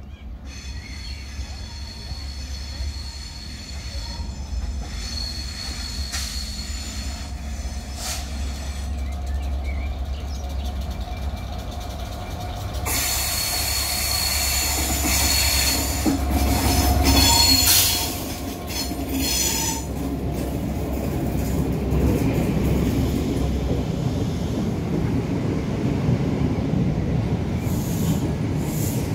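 A Class 67 diesel-electric locomotive hauling a passenger train approaches and passes: the diesel engine drone grows, with high-pitched wheel squeal on the rails. The sound is loudest about two-thirds of the way through as the locomotive goes by, then settles into the steady rumble of the coaches rolling past.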